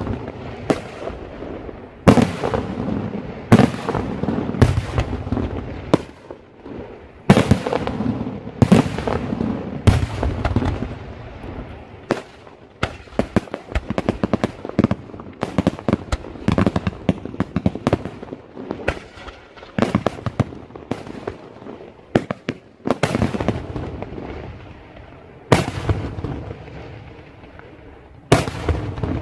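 Daytime aerial fireworks exploding: loud shell bursts bang one after another, with a long stretch of rapid crackling pops in the middle and more heavy bangs near the end.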